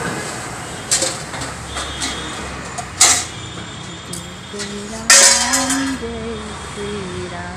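A few sharp metallic clinks and knocks, the loudest two about three and five seconds in, the last with a brief ringing after it; from about four and a half seconds a wavering voice-like tone sounds under them.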